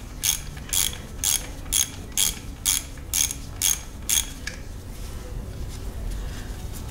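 Hand socket ratchet clicking as it is swung back and forth to back out an A/C compressor mounting bolt, about two clicking strokes a second, stopping about four seconds in.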